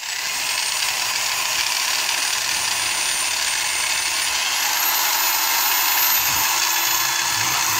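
Electric drill running steadily as it bores into a rusty steel plate, drilling out a large washer. A thin high whine in the motor steps up in pitch about halfway through.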